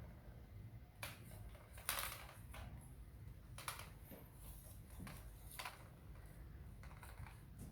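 Faint, irregular plastic clicks and short scratchy scrapes as kittens bat at and scrabble over an air-conditioner remote control, the loudest about two seconds in.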